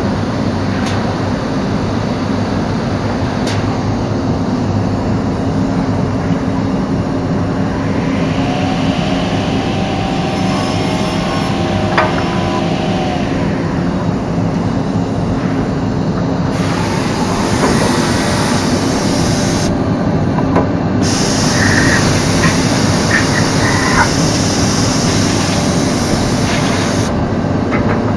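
Biesse Rover A CNC machining centre running, heard from inside its enclosure: a loud, steady machine noise. A high hiss joins in about halfway through and stops near the end.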